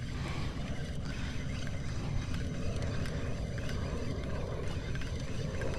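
Steady low rumble of wind and water around a small fishing boat on open water.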